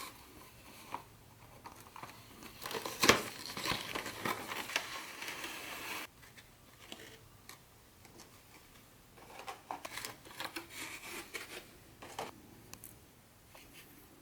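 Packaging being handled: crinkling and rustling with a sharp click about three seconds in, then a second, quieter spell of rustling and small clicks later on.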